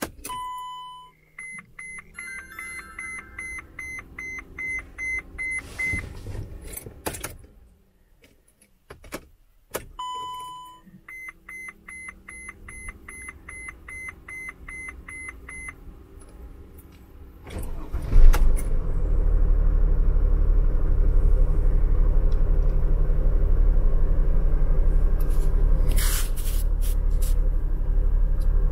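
Ignition of a 2012 Mercedes Sprinter 2500 turbo-diesel V6 switched on twice without starting, to prime oil through the engine after a fresh oil change: each time the dashboard gives a short chime followed by several seconds of quick ticks and beeps. About eighteen seconds in the engine cranks, catches and settles into a steady diesel idle.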